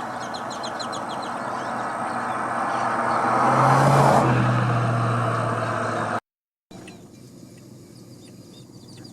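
A motor vehicle passing close by: engine and tyre noise builds to a peak about four seconds in, the engine note dropping in pitch as it goes past. A bird chirps rapidly near the start, and after an abrupt cut the sound is much quieter, with faint bird calls.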